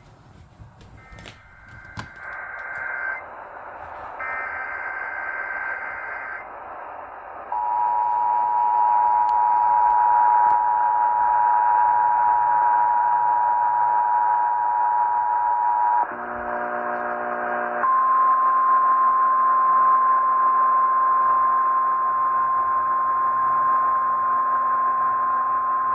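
Emergency Alert System tones received over AM radio, with hiss underneath. Near the start come the data-header bursts, which carry a Child Abduction Emergency code. Then the two-tone attention signal sounds steadily for about eight seconds, and after a short change a single steady higher tone holds for about nine seconds.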